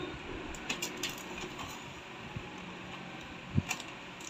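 Light clicks and taps of hands handling a new printer's plastic body and peeling off its blue packing tape, with a sharper knock a little past three and a half seconds in. A faint steady hum lies underneath.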